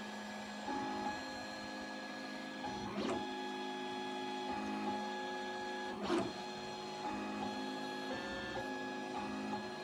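MakerBot Replicator Fifth Generation 3D printer running a print with its newly replaced Smart Extruder, working normally. Its stepper motors whine in steady tones that jump in pitch every fraction of a second as the extruder moves. Two brief louder knocks come about three seconds apart.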